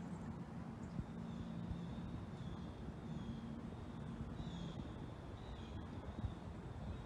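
Steady open-air waterside ambience: a continuous low rumble with a faint steady low hum underneath. Over it, a thin high-pitched sound wavers, dipping and rising several times.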